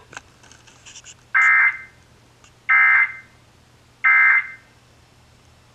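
Emergency Alert System end-of-message signal: three short, identical bursts of SAME digital data tones about 1.3 seconds apart, marking the end of the alert. A few faint clicks come just before the first burst.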